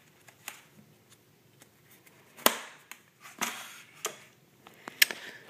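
Plastic bags around an RC glider's foam tail pieces being handled: crinkling and a few sharp clicks and taps, the loudest about two and a half seconds in, with a short rustle about a second later.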